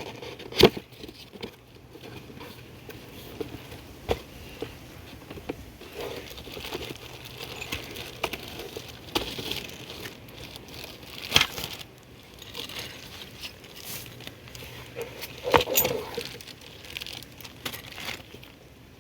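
Packaging of a dual-flush toilet valve being handled and opened: rustling and crinkling, with a few sharp knocks scattered through, the loudest about half a second in.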